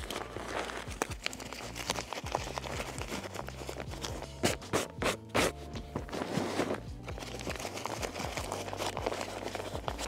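Background music with a steady bass line, over the scraping and crinkling of foil-faced fiberglass duct insulation being handled with gloved hands as its tab is folded back around the duct, with a few sharper scrapes in the middle.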